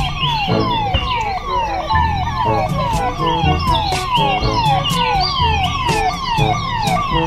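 Police siren sounding in fast, repeated falling wails, about three a second, over a rhythmic low beat with regular clicks.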